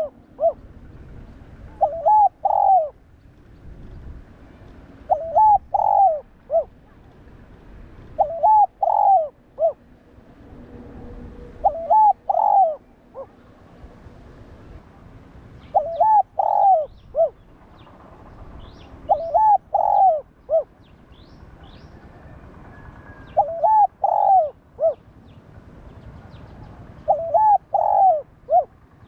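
Spotted dove cooing: a short phrase of several coos about every three and a half seconds, eight times. Faint high chirps from small birds can be heard in the background near the middle.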